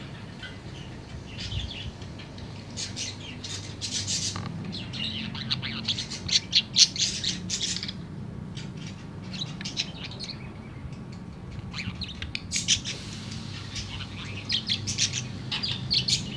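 Budgerigar warbling in quick runs of short, high chirps and chatter, busiest a few seconds in and again near the end, with a quieter spell in the middle.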